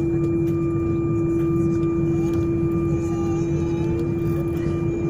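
Steady cabin hum of an Airbus A319 airliner on the ground: one even, unbroken tone over a low rumble.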